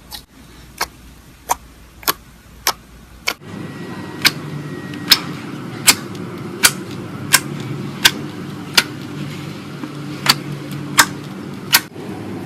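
Slime being played with by hand, popping in sharp clicks at a fairly even rhythm of about one and a half a second. About three and a half seconds in, a low steady hum comes in beneath the clicks.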